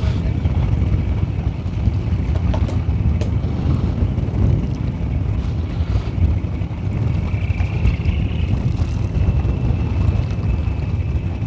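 Steady low rumble of wind buffeting the microphone aboard a fishing boat at sea, with a faint thin whine that grows a little louder about seven seconds in.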